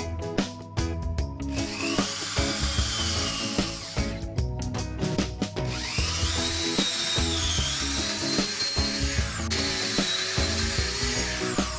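Electric drill running twice in long spells, its high motor whine rising and wavering in pitch as it bites into the work, with a brief break near the end. Background music with a steady beat plays throughout.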